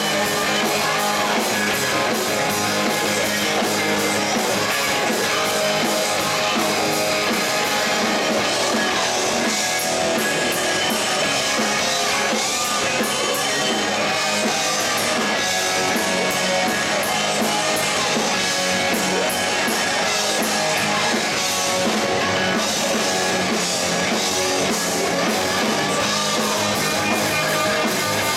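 Live rock band playing loudly, with guitars over a driving drum kit.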